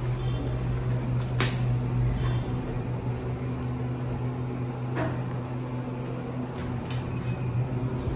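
Steady low hum of a 2006 ThyssenKrupp traction elevator car, broken by a few sharp clicks about a second and a half, five and seven seconds in.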